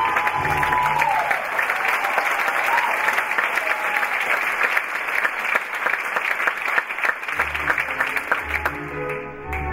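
Theatre audience applauding steadily and loudly. The orchestral ballet music dies away under the clapping in the first second or so and comes back in with low notes about seven seconds in.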